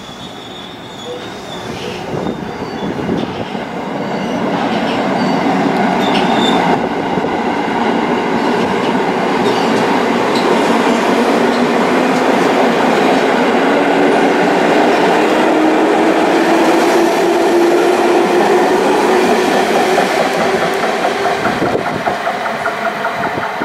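JR West 221 series electric train running along the platform, with wheels clattering on the rails. It builds to a steady loud rumble over the first few seconds, and a motor tone under it rises slowly in pitch as the train gathers speed.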